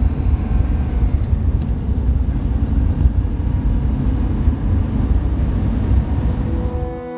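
Maserati 3500 GTi's fuel-injected straight-six engine pulling steadily at road speed, heard from inside the cabin as a dense low rumble mixed with road and wind noise.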